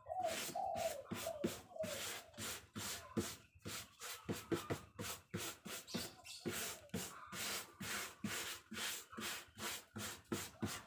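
Wire brush working glued cement-bag paper down onto a carved wooden barongan form, in quick repeated strokes, about two to three a second.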